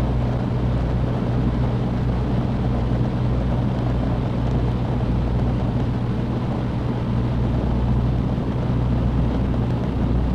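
Cessna 150's Continental O-200 four-cylinder engine running steadily, heard from inside the cabin as an even low drone.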